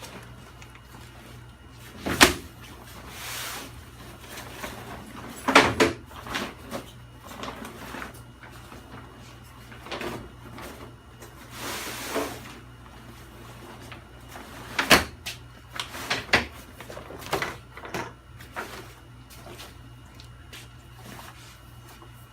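Scattered knocks and clunks with a few brief rustles, like things being handled and set down, over a steady low hum.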